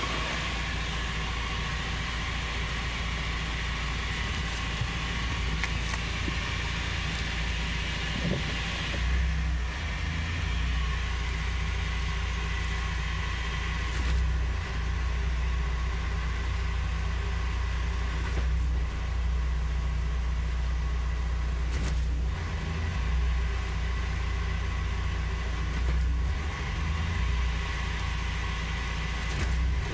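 Steady drivetrain drone and faint whine heard from inside the cabin of a 2003 Mazda Miata NB at road speed. The owner takes it for transmission noise that grows with road speed, not engine revs, and has ruled out the wheel bearings and the differential oil.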